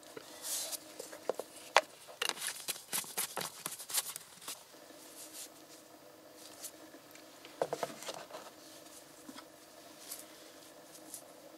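Nitrile-gloved hands handling a plastic engine-oil bottle: crinkly rustles, taps and clicks in bursts, heaviest in the first few seconds and again about eight seconds in, over a faint steady hum.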